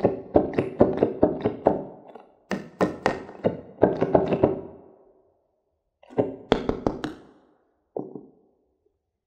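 Fingers tapping on a hollow yellow cheese-shaped squishy toy. The knocks come quickly, about four or five a second, in three bursts, each stroke ringing briefly, with a single knock near the end.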